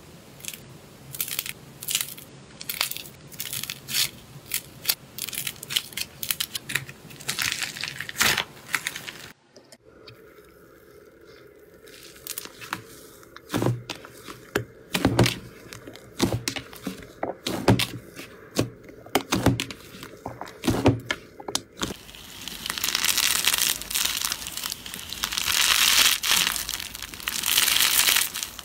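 Slime being squeezed and pressed by hands, making sharp clicks and crackles. After a short break near ten seconds come louder single pops and squelches. From about two-thirds of the way in there is a dense crunching crackle.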